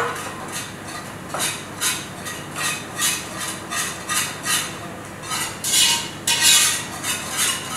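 Raw kataifi (shredded pastry) rustling under the hands as it is spread and patted down into a metal baking tray: a quick series of short, soft rustles, louder for a moment near the end as more is taken from the bowl.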